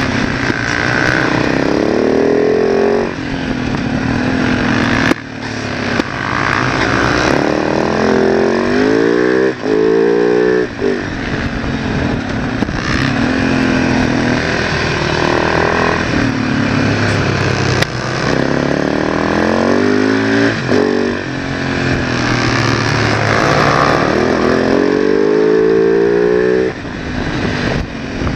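Onboard sound of a supermoto motorcycle engine under hard acceleration. Its pitch climbs again and again and drops sharply at each gear change or throttle lift, over steady wind rush.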